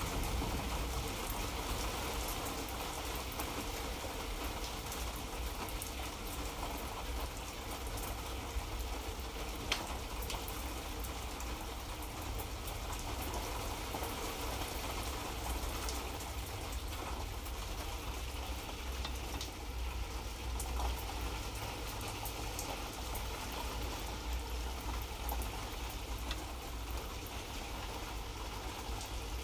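Light rain falling steadily, an even patter with scattered single drop ticks, over a low steady rumble.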